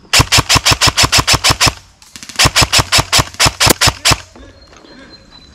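An airsoft rifle firing two rapid strings of about a dozen shots each, roughly seven shots a second, with a short break between them.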